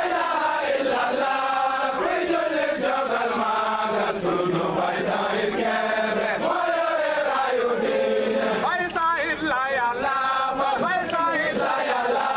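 A group of voices chanting together in long, held melodic lines that glide and waver in pitch.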